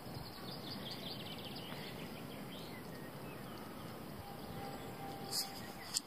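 Quiet rural outdoor ambience with faint bird chirps in the first couple of seconds, and a brief rustle a little after five seconds.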